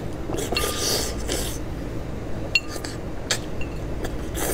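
A man sucking and chewing on a chicken head, with a wet slurping smear in the first second and a half and a few sharp clicks spread through.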